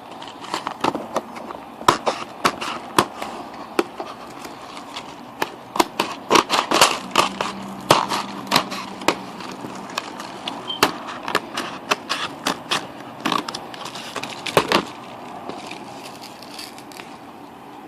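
A small cardboard box of Boston Baked Beans candy-coated peanuts being handled and opened, giving an irregular run of sharp cardboard clicks and crackles that thins out near the end.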